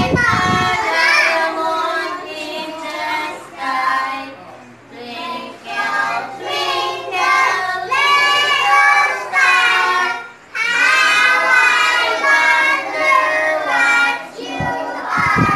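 A group of young children singing a song together, with short breaks between lines.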